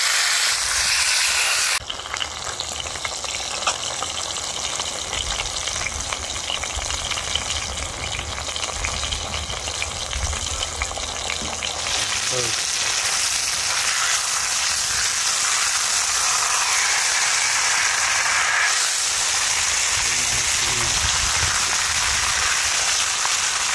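Masala-coated jilebi fish (tilapia) shallow-frying in coconut oil on a hot dosa griddle, sizzling steadily. The sizzle drops suddenly about two seconds in and grows louder again after about twelve seconds.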